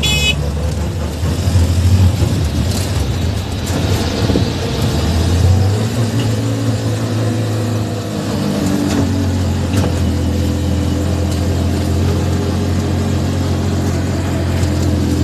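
Car engine and road noise while driving: a steady low hum whose pitch shifts a few times as the engine speed changes.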